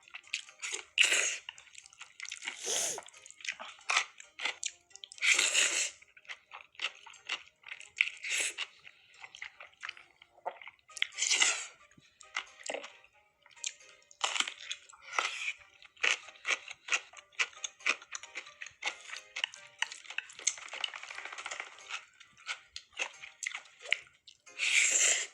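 Close-miked eating sounds: irregular crunching and wet chewing of crispy rice pizza and noodles, with three louder, second-long slurps.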